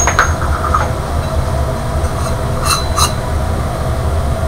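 Babington oil burner running with a steady low rumble of flame and atomising air. About three seconds in come two light metallic clinks as the perforated metal flame tube is handled against the burner fitting.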